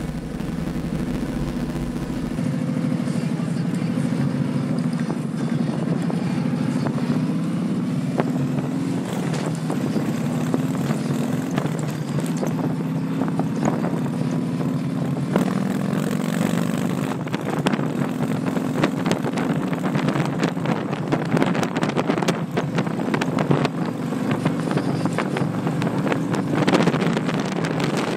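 Touring motorcycle engine and exhaust while riding, the note stepping up and down as it speeds up and slows, with wind buffeting the microphone.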